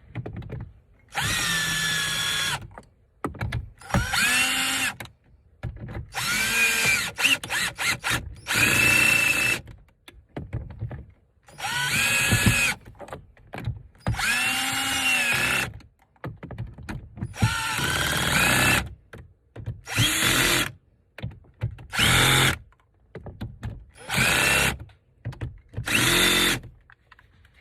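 Power drill run in about eleven short bursts, its motor whine rising and falling with each pull of the trigger, as it drives down the side mirror's mounting bolts.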